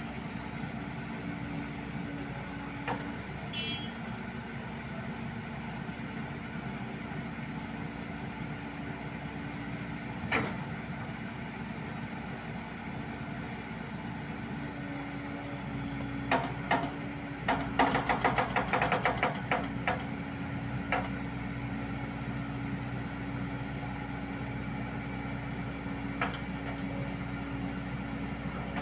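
Excavator diesel engine running steadily, with scattered sharp metal knocks and a rapid run of clanks lasting a few seconds about two-thirds of the way through.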